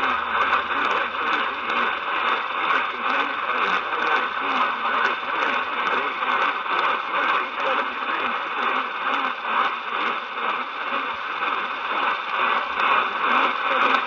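Portable AM radio's speaker playing a weak station at 1680 kHz: muffled, narrow-band station audio under steady static hiss, with frequent crackling clicks of interference.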